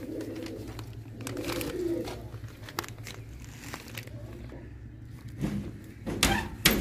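Domestic pigeons cooing. Two sharp knocks near the end are the loudest sounds.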